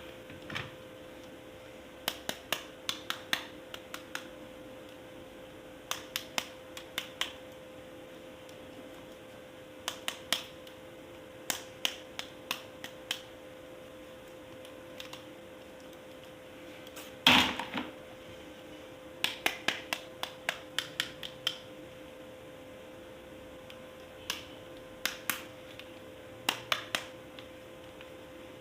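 Handling of hard plastic toy parts: short runs of sharp clicks, several in quick succession, repeating every few seconds, with one louder knock about seventeen seconds in. A faint steady hum lies underneath.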